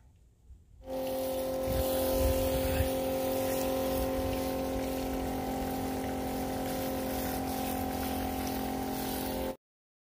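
Water pump running with a steady hum while a hose spray nozzle hisses out water. It starts about a second in and cuts off suddenly near the end.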